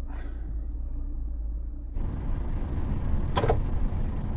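Lada Granta heard from inside the cabin: a steady low engine hum, then about two seconds in a louder even rushing noise sets in as the car moves off. Two short knocks sound about a second apart near the end.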